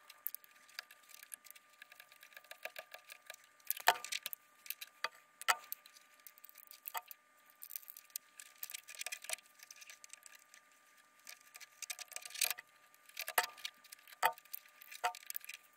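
Irregular small metallic clicks and ticks of hand tools, wire and fittings as safety wire is fitted to an RC jet's fuel-line connections. A few clicks stand out louder, around four seconds in and again near the end.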